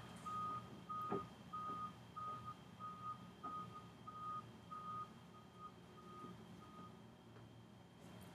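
Faint vehicle reversing alarm beeping at one steady high pitch, about two beeps a second, stopping about seven seconds in.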